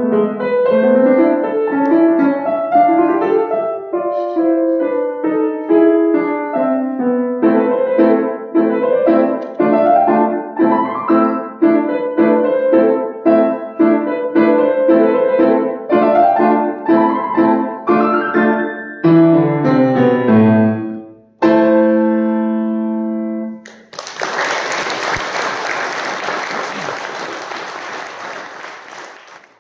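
Grand piano playing a lively piece of quick notes, closing with a run of falling low notes and a final chord held for about two seconds. Then applause for the last few seconds, fading out.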